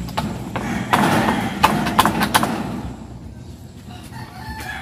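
Hammer knocking on wooden framing: a handful of sharp knocks about a second in, then quieter.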